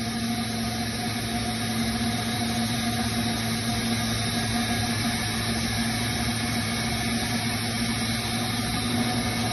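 Thermoforming machine running: a steady mechanical hum with several constant tones over an even hiss, without strokes or changes.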